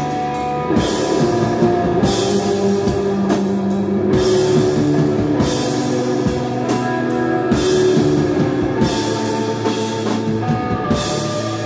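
Live instrumental desert rock: a band playing electric guitar, bass guitar and drum kit, with sustained guitar notes and cymbal crashes every couple of seconds.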